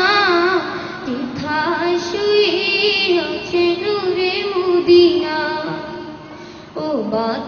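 A high voice singing a Bengali Islamic devotional song, drawing out long wavering notes. It dips for a moment near the end, then comes back in.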